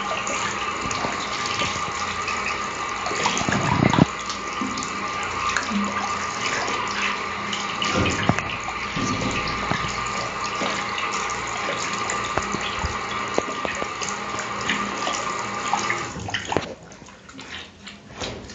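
Tap water running into a sink while a toilet-paper cardboard tube is soaked and squeezed under it, with a few knocks of handling; the tap is shut off about sixteen seconds in.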